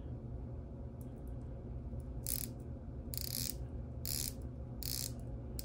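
Tudor Black Bay 58 steel dive watch being handled, making about five short bursts of small metallic clicking from about two seconds in, over a low steady hum.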